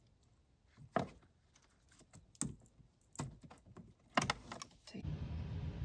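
A few small sharp plastic clicks and rattles as an orange wiring-harness connector is worked loose and unplugged by hand, with a cluster of clicks just after four seconds. A low steady background noise comes in near the end.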